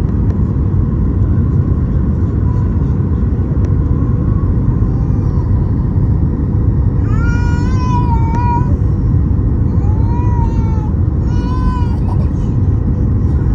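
Airliner landing, heard as a steady, loud low rumble. Three short, high-pitched cries with wavering pitch cut through it, about seven, ten and eleven and a half seconds in.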